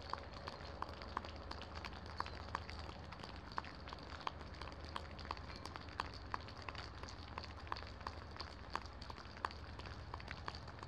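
Rain falling: a steady hiss with single drops ticking close by, a few each second at irregular intervals, over a low steady rumble.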